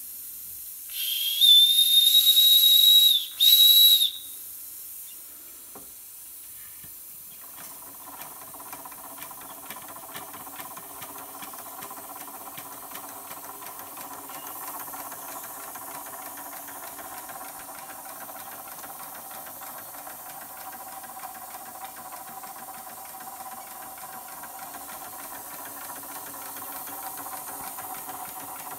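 Josef Falk 143/2 toy steam engine: the boiler's steam whistle is blown twice, a long shrill blast about a second in and a short one a moment later. From about seven seconds in, the small horizontal-cylinder steam engine runs steadily, with rapid light ticking and a soft steam hiss.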